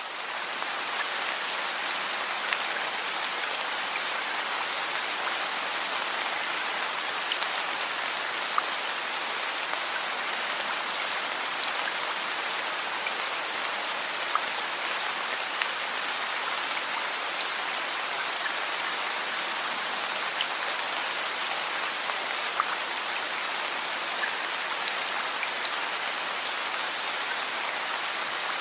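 Steady rain, a dense even hiss dotted with the faint ticks of individual drops, still swelling up from its fade-in during the first second.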